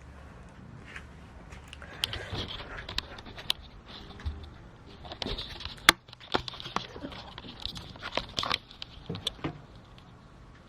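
Irregular clicks, taps and rustles of small objects being handled, with one sharp click about six seconds in.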